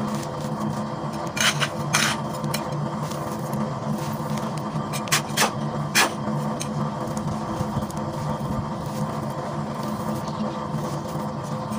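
Dry, gritty sand and gravel rasping and crunching under hands that press, rake and pour it, with several sharp clicks of grit in the first half, over a steady low hum.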